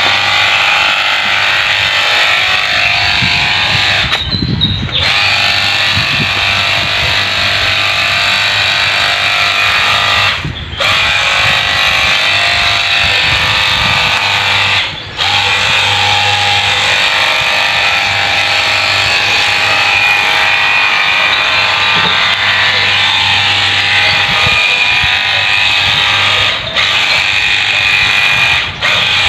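Battery-powered cordless washer gun's small electric pump running steadily as it sprays, with a low hum under a loud hiss. It drops out briefly a few times.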